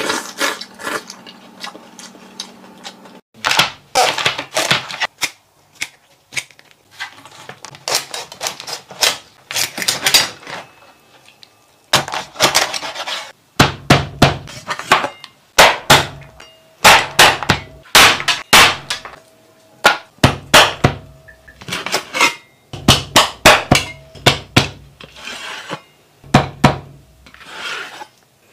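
Cleaver chopping through a spiny lobster's shell on a cutting board, in clusters of sharp, rapid chops. A low steady hum comes before the chopping, which starts about three seconds in.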